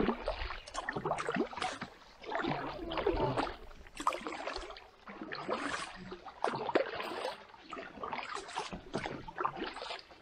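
Kayak paddle blades dipping and splashing in calm water, one stroke after another about once a second, with water trickling off the blades between strokes.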